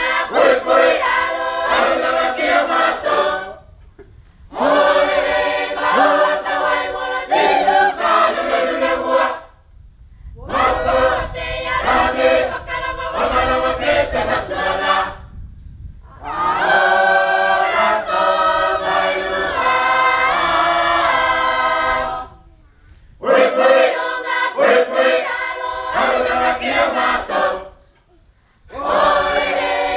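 A choir of women and men singing unaccompanied, in phrases of about four to six seconds each with short breaks between them.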